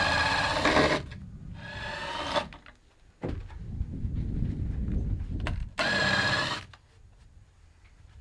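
Cordless drill/driver whining in three short bursts of about a second each, at the start, about two seconds in and about six seconds in, backing screws out of the old wooden structure, with low rumbling handling noise in between.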